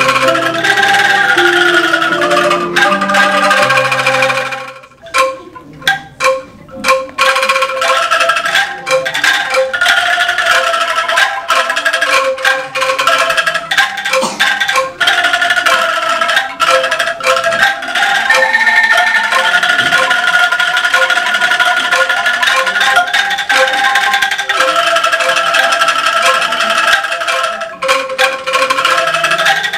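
Bamboo angklung ensemble playing a melody, each note a shaken bamboo rattle held as a trembling tone. About five seconds in the music breaks briefly, with a few short separate strikes, then the tune goes on.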